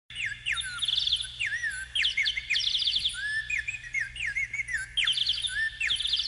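Several birds singing at once: short chirps, whistled rising and falling notes and quick trills that overlap, over a faint low hum.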